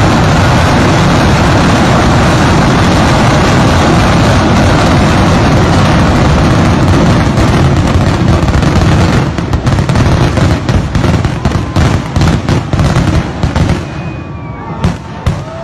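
Kerala temple fireworks (vedikkettu) going off in a dense, unbroken barrage of explosions, very loud. From about nine seconds in the barrage breaks up into separate bangs that thin out, with a few last single bangs near the end.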